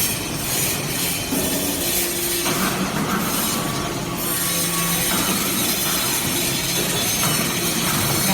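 Hydraulic metal-chip briquetting press running: a steady, harsh mechanical noise with a hum that shifts pitch every second or two.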